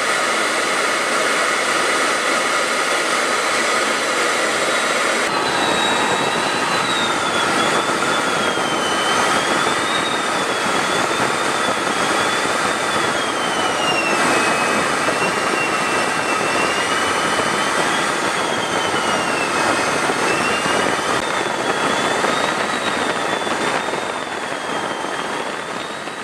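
Jet engine noise in flight, steady, with a high whine that slowly rises and falls from about five seconds in. The sound fades out near the end.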